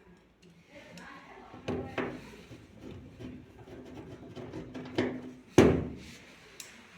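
A few sharp knocks and clunks with faint clicking between them, the loudest about five and a half seconds in.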